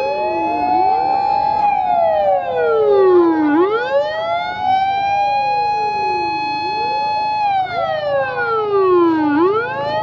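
Several fire-engine sirens wailing out of step with one another, each rising slowly to a held high note and then sliding down again. A low engine rumble comes in during the last couple of seconds.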